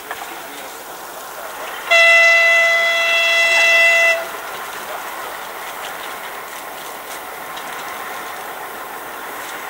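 Narrow-gauge locomotive's horn sounding one long, steady note for about two seconds.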